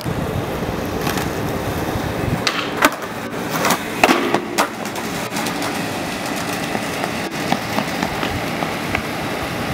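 Skateboard wheels rolling on rough concrete, with several sharp clacks of the board striking the ground, most of them between about two and a half and five seconds in.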